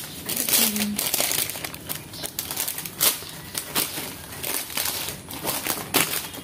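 Pleated paper air fryer liner being handled and opened out, crinkling and rustling in irregular crackles.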